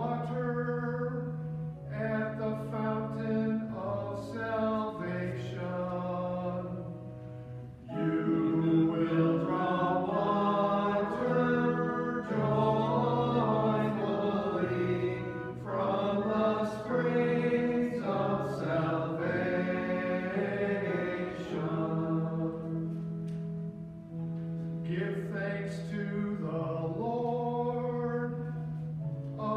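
Responsorial psalm sung in church, with long held accompanying notes beneath the voices. The singing dips briefly about eight seconds in and comes back louder.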